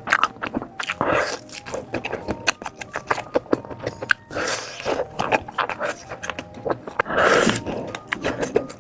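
Close-up eating sounds: bites into sausages and chewing, with many sharp wet mouth clicks and a few louder bites about a second in, midway, and near the end.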